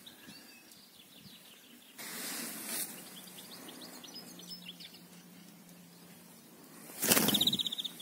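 Faint high chirps of small birds, then a short, loud flutter of rapid wingbeats about seven seconds in as a small songbird is let go from the hand and flies off.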